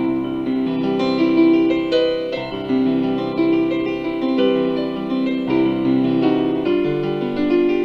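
Background music led by a keyboard playing melody and sustained chords.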